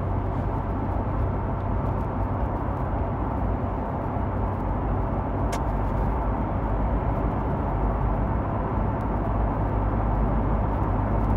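Steady low rumble of a car heard from inside the cabin, the road and engine noise of a car on the move, with one faint click about five and a half seconds in.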